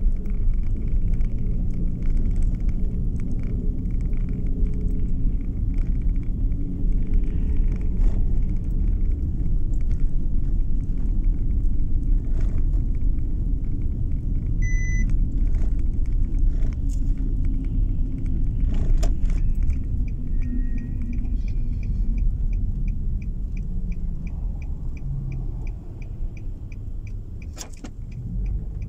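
Inside a car driving on a snow-packed road: a steady low rumble of engine and tyres, with a few sharp knocks. About three-quarters of the way in, the turn signal starts ticking steadily, about three clicks a second, as the rumble eases off a little.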